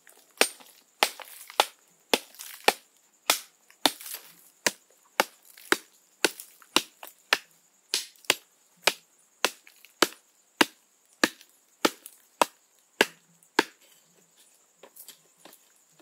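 Long-handled metal hoe blade chopping into hard, dry, stony earth, breaking it up into clods: sharp strikes at a steady pace of about two a second that stop near the end, followed by a few soft knocks of loose clods being moved by hand.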